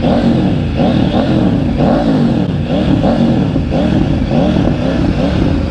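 Motorcycle engine revved in quick repeated throttle blips, its pitch rising and falling about every half second.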